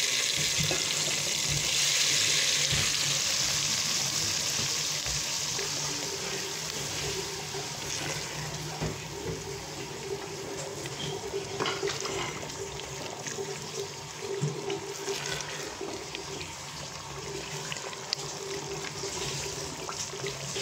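Ground onion, garlic and ginger gravy paste sizzling hard in a pot as hot frying oil goes in. The hiss eases over the first several seconds into a steady sizzle, with a few short knocks of a wooden spatula.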